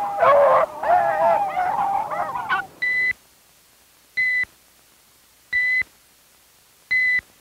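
Beagles baying in full cry on a rabbit's trail for about three seconds; the calls waver up and down. Then comes a high electronic beep, about a quarter second long, repeated four times about every second and a half, paired with a shoot-or-don't-shoot decision card.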